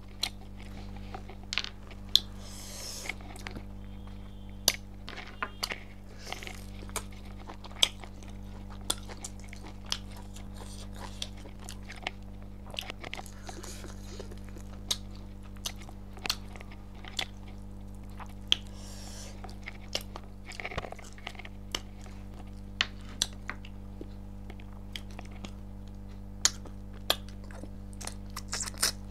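Close-miked chewing and gnawing of pork on the bone, with wet mouth sounds and sharp, irregular crunching clicks about once or twice a second, over a steady low hum.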